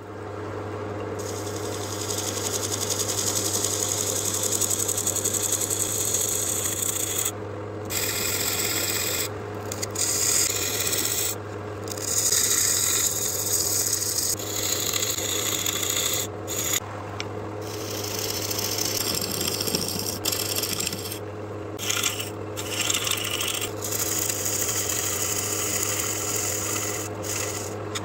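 A wood lathe running with a steady motor hum while a hand-held turning tool cuts the spinning wood blank, giving a rough scraping hiss that stops briefly each time the tool is lifted, about ten times.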